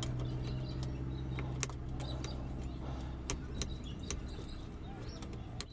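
Ute engine idling quietly after being started with a dipstick pick in a worn ignition barrel, its steady hum easing off about three seconds in. Light metallic clicks of the pick and keys in the barrel.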